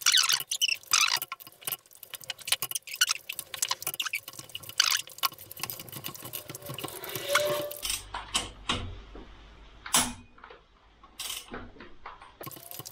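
Cylinder head bolts being broken loose with a socket and long breaker bar: a dense run of sharp metallic clicks and clinks, thinning to a few separate knocks in the last few seconds.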